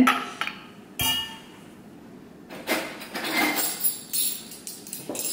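Kitchen clatter: a sharp glass clink with a short ring about a second in, as a glass bottle is set down on the counter. This is followed by a run of light, irregular knocks and clinks.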